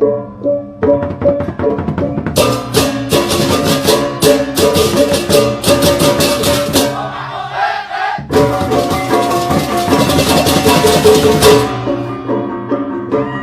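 Music with percussion: pitched notes over a steady run of rattle-like percussion strokes, thinning out briefly about seven seconds in and then coming back.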